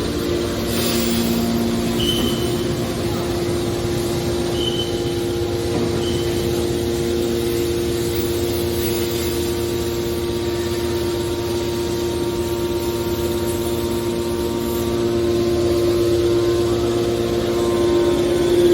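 Aluminum can baler running with a steady machine hum, with three short high squeaks in the first few seconds and a slight swell in loudness near the end.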